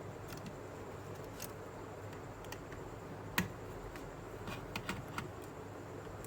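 Light clicks and taps of small tools and parts being handled, with one sharper click about three and a half seconds in and a few quick clicks near five seconds, over a steady low hum.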